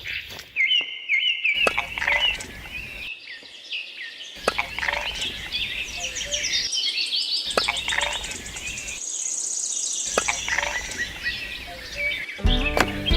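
Birds chirping and trilling in many short, quick calls, broken by several abrupt cuts; music with a beat comes in near the end.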